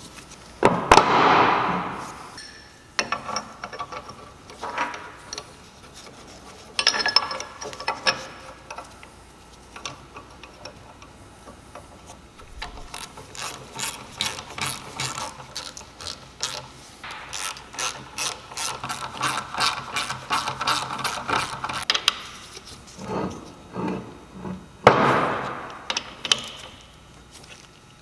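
A ratchet wrench clicking on the pinion nut of a Salisbury differential, most likely tightening it to set pinion bearing preload. The middle holds a long even run of clicks at about four a second, and louder clunks of the tools against the housing come near the start, about seven seconds in and near the end.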